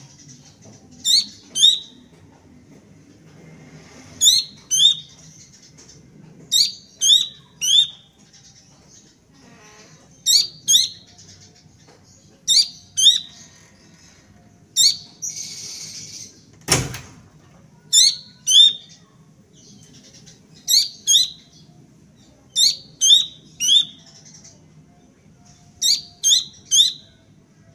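Young Horsfield's babbler calling in short groups of two or three sharp, high notes, a group every two to three seconds. A single sharp knock sounds about two-thirds of the way through.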